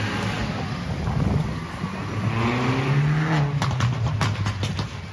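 Street traffic with a passing vehicle's engine speeding up, its pitch rising, followed near the end by a quick run of sharp clicks.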